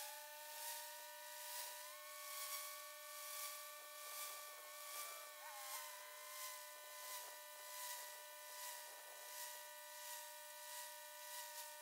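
Pressure-washer turbo nozzle spraying concrete: a steady hiss that swells and fades about once a second as the wand sweeps back and forth, with a steady whine of several tones underneath.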